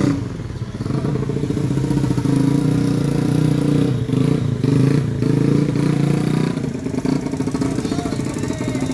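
A vehicle engine running close by, steady and loud, with an uneven low chatter.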